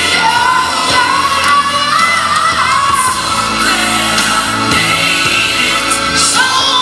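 Live gospel music: a male lead singer sings a long, bending melodic line over a backing band.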